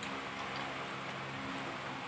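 A steady low mechanical hum, like a motor running in the background, with a couple of faint light clicks.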